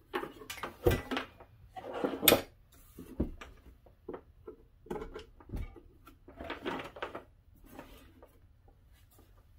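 Power cord and plugs being handled and plugged into a desoldering station's base unit: a series of plastic clicks, knocks and rustling cable handling, the sharpest knock about two seconds in.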